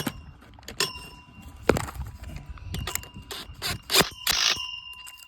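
Metal clinks and scrapes from hand tools working on steel chain-link fence brace bands. There are a string of sharp clinks, bunched together about three to four and a half seconds in, and a few leave a brief bell-like ring.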